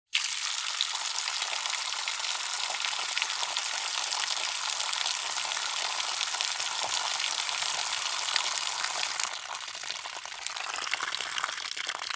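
Water running hard from an outdoor faucet, a steady hiss that starts abruptly. About nine seconds in the flow eases and the sound gets quieter and changes.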